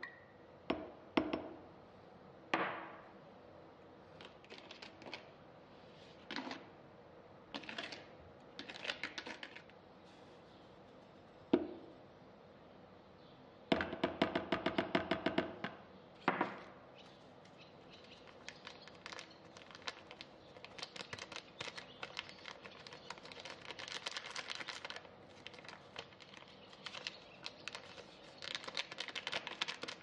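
Kitchen sounds of mixing batter in a plastic bowl: scattered knocks and taps, a dense run of clicking about halfway, then a long run of fast, light clicking from a wire whisk against the bowl.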